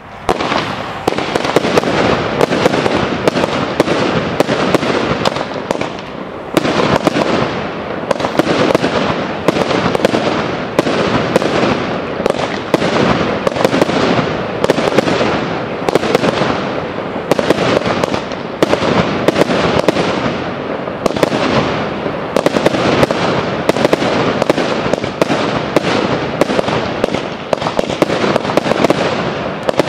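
Fireworks display firing a dense, unbroken barrage of bangs and crackling aerial bursts, with a short lull about six seconds in.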